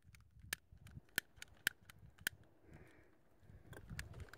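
Butane torch lighter clicked over and over, its igniter snapping about every half second without the flame catching.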